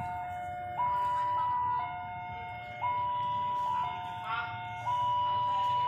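Railway level-crossing electronic warning alarm sounding its repeating stepped-tone chime, a few fixed pitches in a cycle about every two seconds, the signal that a train is approaching.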